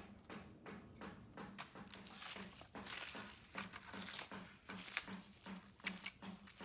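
Plastic wrap crinkling and rustling as laptop replacement parts are unwrapped, with scattered sharp clicks. A faint low pulse repeats evenly about three times a second underneath.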